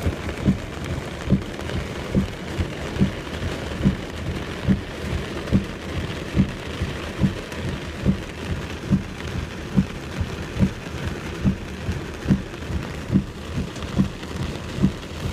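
Heavy rain falling steadily, with a regular low thump a little more than once a second.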